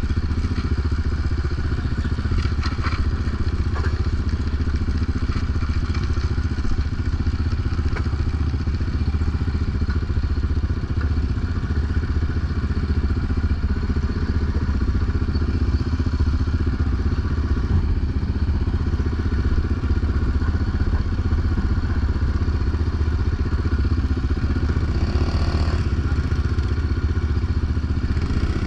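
Yamaha Raptor 700 quad's single-cylinder four-stroke engine running steadily.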